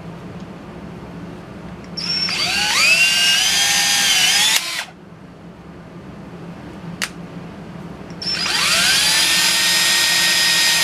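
Electric drill driving a blind rivet adapter to pull a rivet. It runs in two bursts of about two and a half seconds each, its whine rising as it spins up and then holding steady. A short click comes between the bursts.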